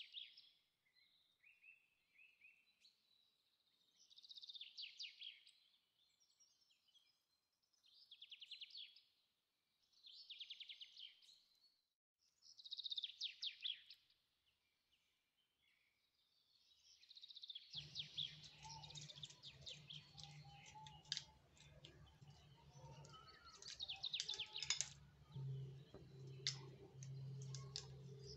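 Faint birdsong: short trilled phrases, high in pitch, repeated every couple of seconds. About two-thirds of the way in, a low steady hum starts suddenly, with scattered light clicks under continued chirping.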